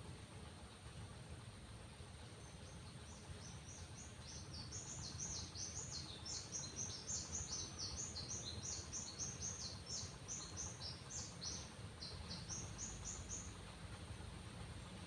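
A bird singing a long, rapid series of short, high notes, each sweeping downward, about four a second; it starts about two seconds in and stops near the end, over a steady low rumble.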